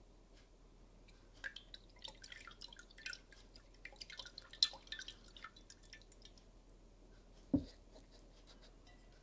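Glass beaker of brown solution lifted and moved by hand, the liquid inside giving a scatter of light dripping, plinking clicks. It is then set down on the bench with one dull thump about seven and a half seconds in.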